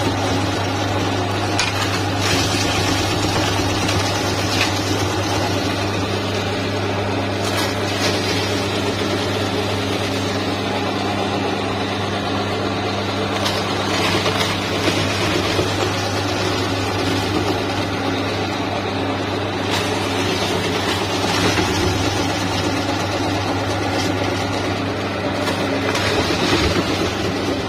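Electric meat grinder's motor running with a steady hum while its auger grinds Oreo cookies, with short crunches now and then as cookies are crushed.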